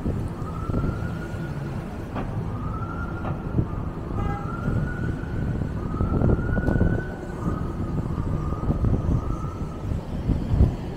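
A distant emergency-vehicle siren wailing, its pitch swinging up and back down about every second and a half before fading out near the end. Under it, a steady rumble of city traffic from cars passing through the intersection.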